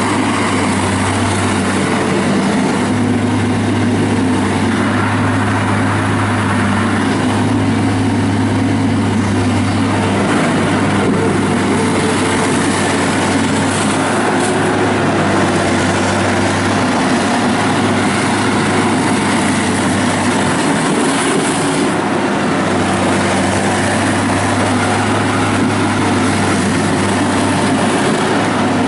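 Yanmar diesel engine of a Mustang 2054 skid steer loader running at a steady speed, its note shifting a little a few times.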